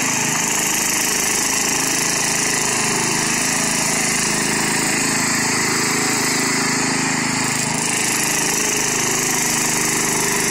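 Riding lawn mower engine running steadily at speed as the mower is driven hard through turns.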